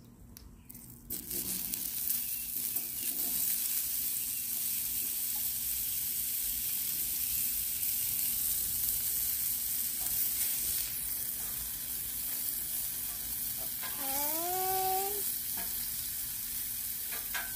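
Sliced zucchini dropped onto a hot Blackstone flat-top griddle beside bacon, bursting into a steady sizzle about a second in and frying on evenly.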